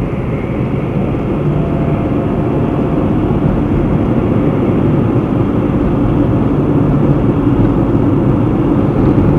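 Car engine and tyre noise heard inside the cabin while driving, a dense rumble with a faint steady engine hum, growing gradually louder as the car keeps moving.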